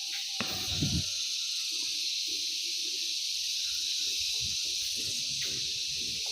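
Steady high-pitched hiss, with faint, irregular low sounds underneath.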